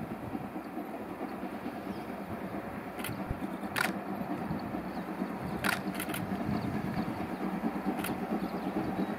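Distant JNR Class C58 steam locomotive working hard with a heavy train, its exhaust a steady rumble that grows slightly louder as it comes on. A handful of short sharp clicks sound over it.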